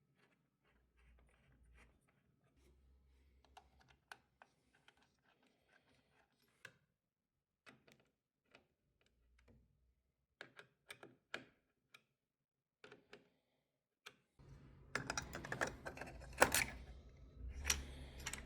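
Scattered light clicks and taps of hands handling PC parts, turning into a louder, busier clatter in the last few seconds.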